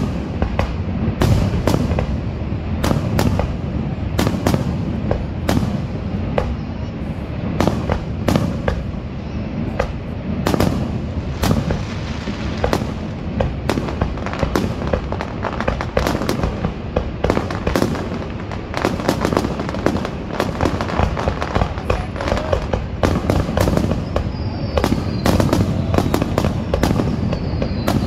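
Aerial fireworks shells bursting one after another: a steady stream of sharp bangs and crackles that grows into a dense, rapid crackling barrage in the last third.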